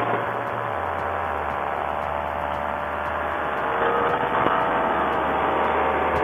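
Paramotor trike engine and propeller running steadily in flight, heard through a Sena helmet headset microphone. About four seconds in the pitch rises and it gets louder as the throttle is opened.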